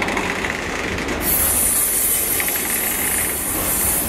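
A long freight train of covered hopper wagons rolling past at speed, with a steady rumble and wheels clattering over the rail joints. A high hiss joins about a second in and holds.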